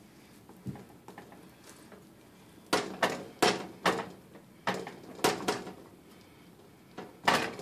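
Plastic spatula knocking and scraping against a glass baking dish while cutting out and lifting a serving of baked enchiladas: about eight sharp clacks between about three and five and a half seconds in, and one more near the end.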